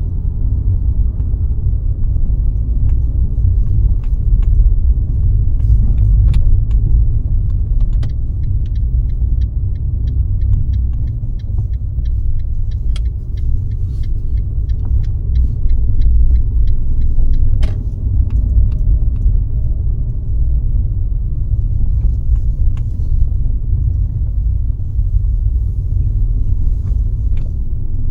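Car driving on the road: a steady low rumble of engine and tyres, with scattered small clicks and rattles.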